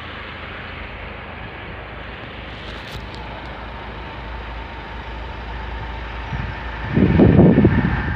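An approaching train on an electrified main line, its noise growing steadily louder as it nears. A steady high tone comes in during the second half, and heavy low rumbling bursts peak about seven seconds in.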